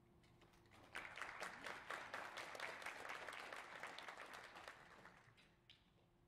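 Audience applauding: a patter of many hand claps that starts about a second in and dies away after about four seconds.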